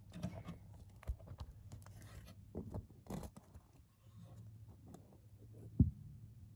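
Handling noise: irregular scratching, rustling and small clicks as the camera is moved around a mesh insect enclosure and its leaves, with one sharp knock near the end.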